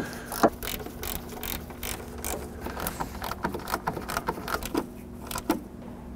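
Hand ratchet clicking in quick strokes as bolts on the radiator's upper bracket are snugged up. The clicks thin out and stop near the end.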